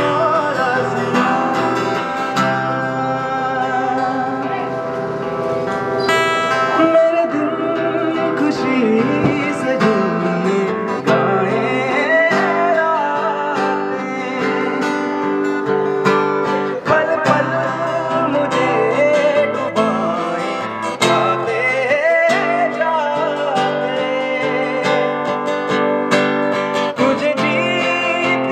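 A man singing a song with a strummed acoustic guitar as accompaniment.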